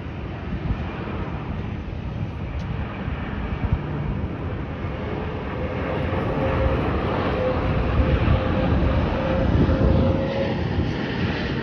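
Jet airliner's engines passing, a broad rumble that grows louder about halfway through, with a steady whine held for several seconds.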